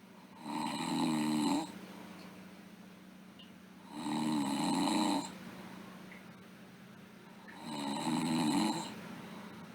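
A sleeping girl snoring: three snores, each lasting about a second, coming about three and a half seconds apart.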